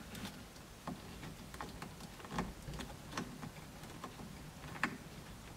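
Hand screwdriver turning small screws into a phone-holder mount bracket: faint, irregular light clicks and ticks.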